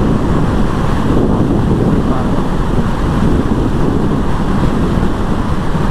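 Heavy, steady wind noise buffeting a GoPro's microphone on a moving motorcycle, covering the engine and road sound.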